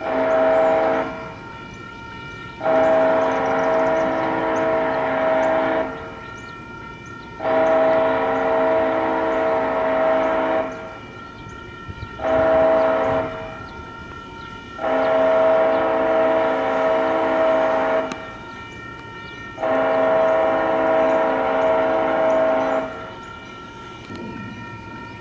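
A Metra commuter train's multi-chime air horn sounding for the grade crossing: a short blast, two long blasts of about three seconds each, a short one, then two more long blasts. Between the blasts the crossing signal's warning bell rings steadily.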